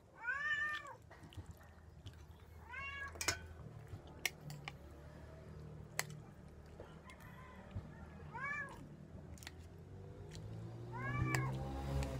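Domestic cat meowing four times, each meow a short call that rises and then falls in pitch, spread across several seconds. Sharp clinks of metal utensils on dishes fall in between.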